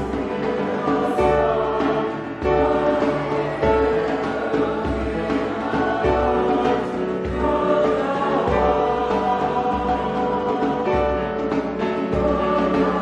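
Choir singing sacred music over low sustained accompanying notes that change every second or so.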